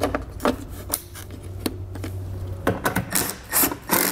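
Sharp plastic clicks and handling of a car taillight housing as its wiring is plugged in and it is fitted back in place. Near the end, a cordless drill/driver runs in a few short bursts, driving in the taillight's fasteners.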